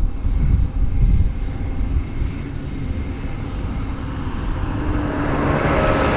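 New Holland CR11 combine harvester running in the field: a deep rumble that grows louder over the last couple of seconds, with a rising hum of machinery.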